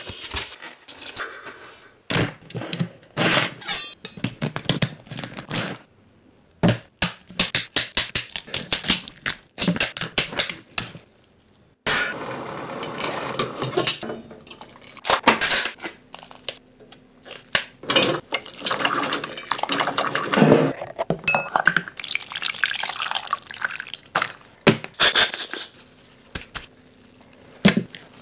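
A quick run of close-miked kitchen handling sounds: a styrofoam box, water in a steel stockpot holding a lobster, and gloved hands pressing panko breadcrumbs. It is heard as many short crackles and knocks with brief quiet gaps between them.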